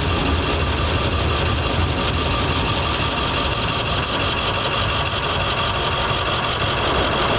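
Autorack freight cars rolling past on the track, a heavy low rumble that eases about halfway through as the end of the train goes by, with a steady high-pitched hum running over it.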